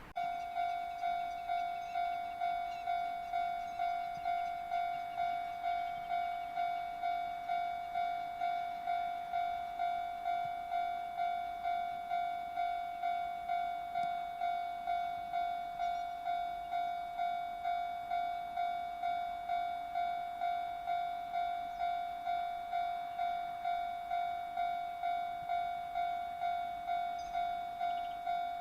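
Japanese level-crossing warning bell ringing, starting suddenly and repeating one pitched, clanging stroke about one and a half times a second. It is the crossing alarm signalling that a train is approaching.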